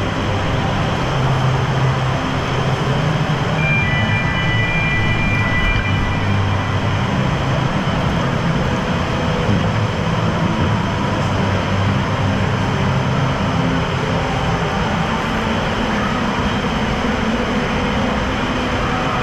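Steady, echoing roar of an indoor waterpark hall: running water and machinery noise, with a brief high tone about four seconds in.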